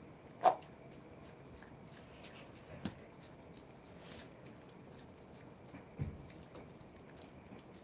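Stray tabby cat licking a liquid cat treat from a squeeze tube: faint, quick wet licks and lip smacks. A single sharp click about half a second in, the loudest sound, and a couple of softer knocks later.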